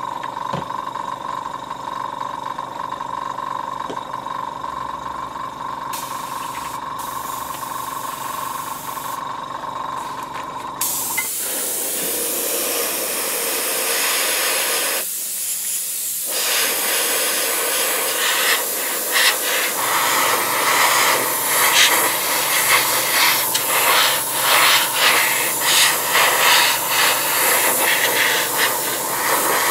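Small airbrush compressor running with a steady hum, then about eleven seconds in a gravity-feed airbrush starts hissing as a light highlight coat is sprayed. The hiss breaks off briefly, then goes on in uneven, pulsing bursts as the trigger is worked on and off.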